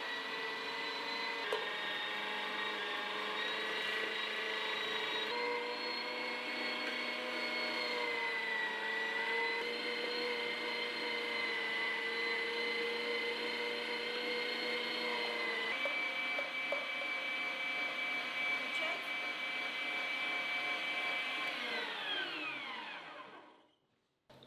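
Electric meat grinder motor running with a steady whine while mincing onion, its pitch shifting a little a few times. Near the end it is switched off and winds down with a falling whine.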